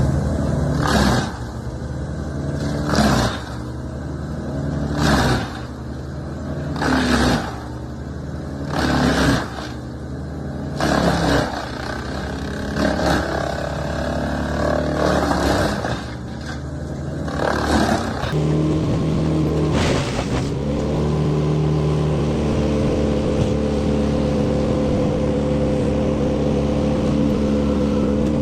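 Sawing machine's engine running steadily, with a loud cut about every two seconds as its circular saw blade goes through logs. About two-thirds of the way in the cuts stop and only a steady machine drone remains, with several held tones.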